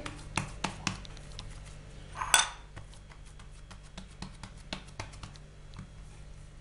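Hands pressing and stretching buttered dough flat on a stone work surface: a string of small, irregular taps and clicks, with one louder clink a little over two seconds in.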